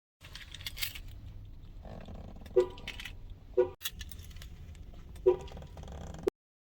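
Car horn sounding in short, loud honks set off by the key fob's panic alarm, starting about two and a half seconds in, over a steady low rumble; keys jangle near the start.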